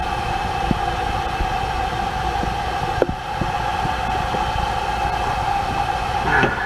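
A steady droning hum over a low rumble, with a couple of faint clicks.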